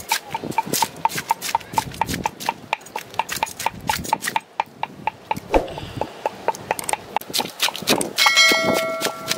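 Knife scraping the scales off a whole fish, quick rasping strokes about five a second. About eight seconds in, a short chime with a click from the subscribe-button sound effect.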